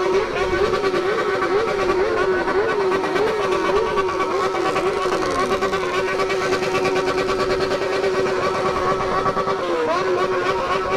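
Straight-piped Yamaha XJ6 inline-four motorcycle engine revved hard, rising and falling over and over about every half second, then held at steady high revs for the second half after one drop in pitch. The engine is running hot.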